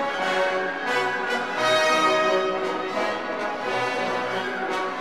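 Orchestral background music with brass carrying long, sustained notes.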